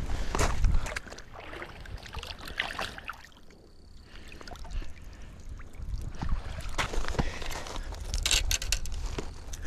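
Water lapping and sloshing at the lake's edge, coming in uneven bursts, with a steady low rumble underneath.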